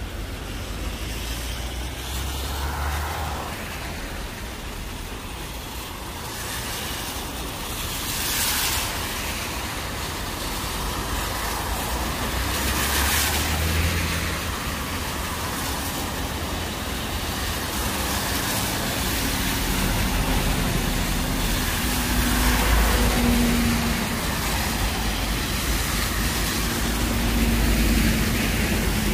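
City road traffic going by: a steady hiss of passing vehicles, with louder swells as vehicles pass about eight and thirteen seconds in. A lower engine rumble from heavier vehicles builds in the second half.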